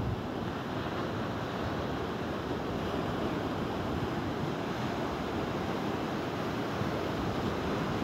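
Sea waves breaking and washing up a sandy beach: a steady rush of surf.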